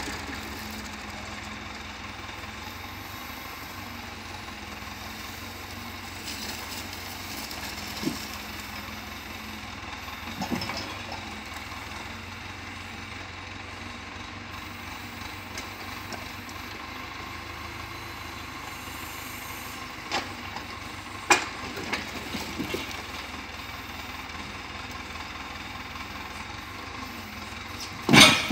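Tractor engine running steadily, powering the hydraulic crane of a timber trailer. Every so often the grapple's load of pine poles knocks together, a single sharp wooden knock, the loudest near the end.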